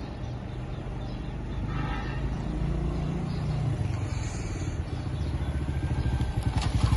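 Motorcycle engine running as the bike rides slowly up and draws near, getting louder toward the end.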